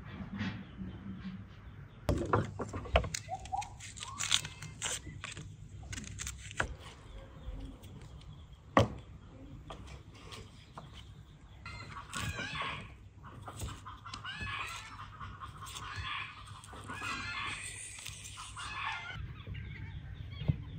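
Sharp knocks of a knife chopping through a raw chicken on a wooden board, the hardest a single chop about nine seconds in. From about twelve seconds in, chickens cluck and call over and over for several seconds.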